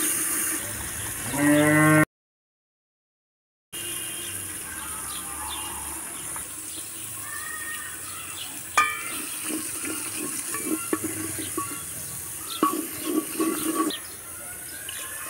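A cow moos once, rising in pitch, about a second in, then the sound cuts out completely for over a second. Afterwards a wooden spoon scrapes and stirs thick masala frying in an aluminium pot, with birds chirping, a steady hiss, and one sharp knock about nine seconds in.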